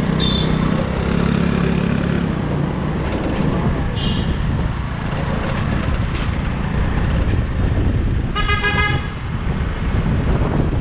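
City traffic on the move: a steady engine and road rumble, with short horn toots near the start and about four seconds in, and a louder car horn honk of under a second near the end.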